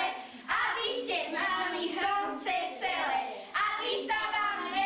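Fourth-grade schoolchildren singing, their voices moving through short melodic phrases.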